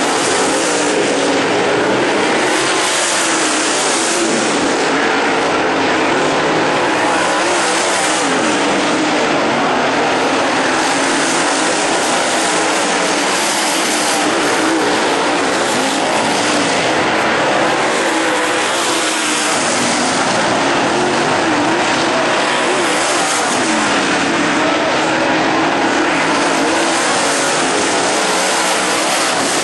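A pack of dirt late model race cars racing around a dirt oval, their V8 engines running together in a steady loud drone whose pitch keeps rising and falling as cars pass.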